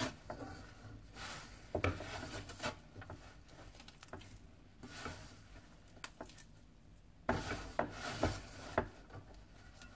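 A hand kneading crumbly flour dough in a stainless steel bowl: irregular rubbing and scraping, in two louder spells, about a second in and again about seven seconds in.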